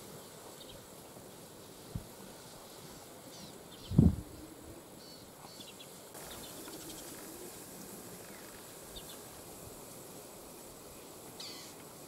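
Savanna bush ambience: a steady high hiss with scattered short, high bird chirps. A single loud low thump comes about four seconds in.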